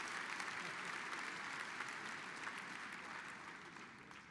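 A large audience applauding, the clapping gradually dying away.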